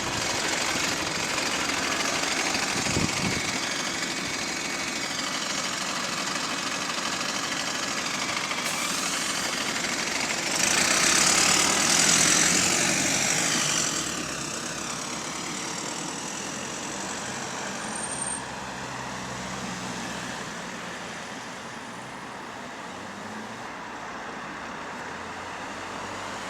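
Bus WS104 running on route, with its drivetrain whine gliding up and down in pitch. About ten seconds in there is a loud hiss of air lasting some three seconds, from the bus's air brakes.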